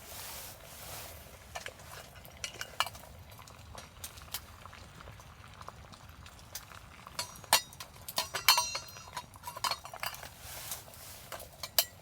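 Metal utensils clinking and scraping against camp cookware, a scattered run of light clicks and knocks with a short ringing cluster about eight seconds in.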